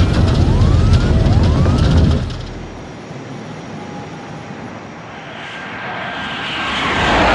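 Jet aircraft noise: a loud low rumble that drops away about two seconds in, then a rushing jet sound that swells toward the end as the plane passes overhead.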